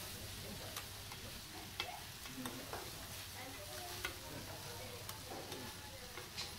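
Chopped cabbage mix for monjayaki sizzling on a teppan hotplate while two spatulas chop and turn it, scraping across the griddle with several sharp clinks.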